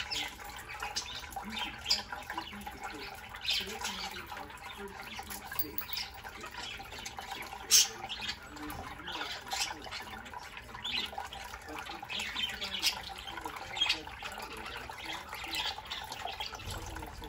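A flock of budgerigars chattering with many quick chirps and warbles, and one sharp click about eight seconds in.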